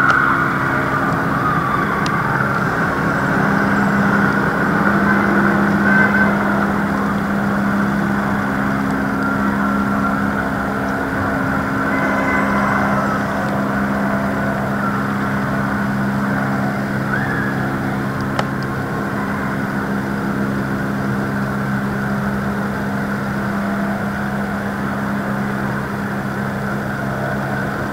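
Engine running steadily: a low, even hum that holds throughout. A wavering siren-like tone fades out about a second in.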